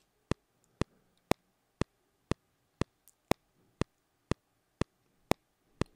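Cubase 9.5 metronome's 'Vintage Spike' preset, a simulated UREI studio click, playing a steady sharp click about two times a second. Every fourth click is brighter and louder, marking the bar's downbeat.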